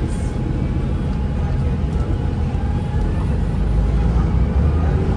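Orion VII Next Generation city bus under way, heard from inside the cabin: a steady low running rumble with road noise, growing a little louder about three seconds in.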